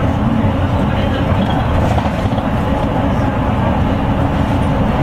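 Route bus engine and tyre noise heard inside the cabin: a steady low rumble while the bus drives along.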